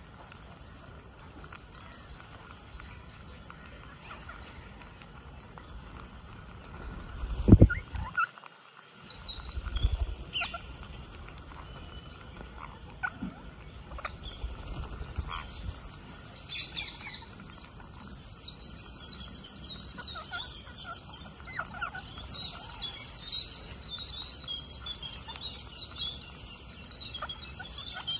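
Rose-ringed parakeets chirping and screeching, with scattered calls at first that thicken into steady chatter about halfway through. A single loud low thump comes about seven seconds in.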